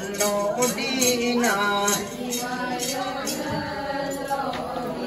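Group chanting of an Adi Ponung song, several voices singing a line with sliding pitch together. It drops a little in loudness about two seconds in.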